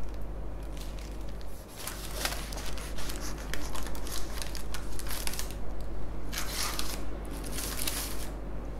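A knife sawing through a cream puff's crisp, crumbly cookie-crust shell, crunching and crackling in several bursts that start about two seconds in.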